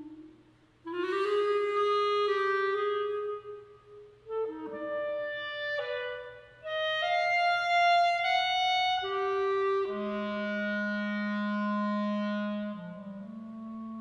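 Unaccompanied solo clarinet playing a slow passage of long held notes with short gaps between phrases. The first note scoops up into pitch, and the passage ends on a long low note with a slight bend.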